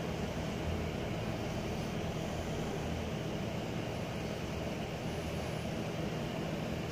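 Steady low hum with an even hiss that does not change, typical of a running aquarium filter.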